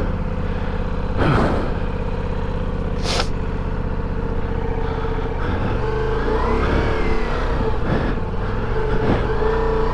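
Ducati Multistrada V4 Rally's V4 engine running steadily at idle, then from about halfway its revs rise and fall as the bike moves off slowly over the rocky trail. A few sharp clicks come in the first few seconds.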